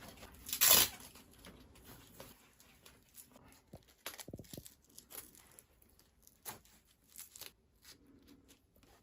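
Handling a home sleep-test recorder and its chest strap: one brief loud rip about a second in, then scattered faint rustles and light clicks.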